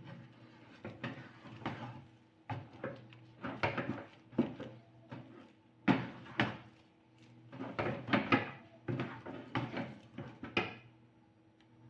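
A spatula stirring and scraping thick, sticky glutinous-rice biko in a wok, with irregular scraping and knocking strokes over a faint steady hum.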